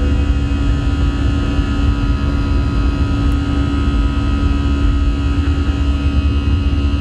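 Airbus A319 jet engines and airflow heard from inside the cabin: a steady, loud low rumble with a constant whine over it.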